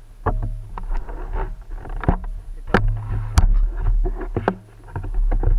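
Wind rumbling on a helmet-mounted action camera's microphone, with scattered sharp knocks and rattles from the camera and bike being handled.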